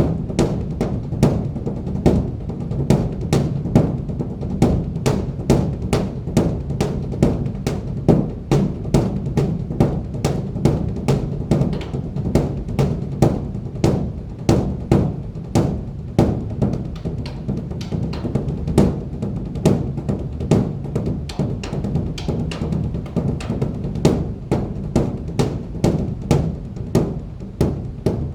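Large Buddhist temple drum beaten in a continuous stream of strokes, about two to three a second, some harder than others, each leaving a low ring.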